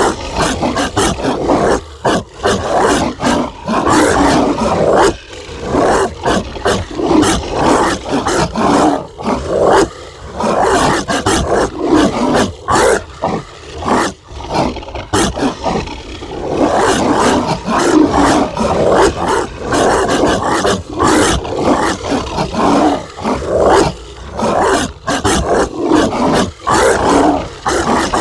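Zombie dog barking sound effect: a monstrous dog barking and snarling, nearly continuous, with many short breaks.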